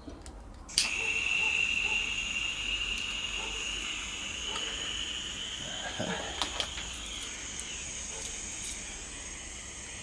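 Butane gas soldering iron: a sharp click as it is lit, then a steady high hiss of burning gas that sinks slightly in pitch. A few light knocks about six seconds in.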